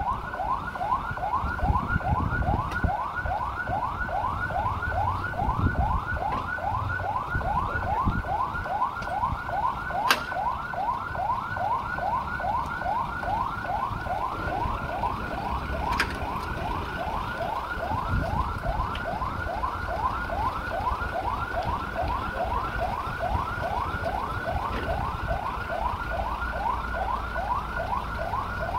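Electronic siren on a rescue pickup, cycling in a fast yelp: rising sweeps about three a second, repeated without a break. Two sharp clicks come about a third of the way and halfway through.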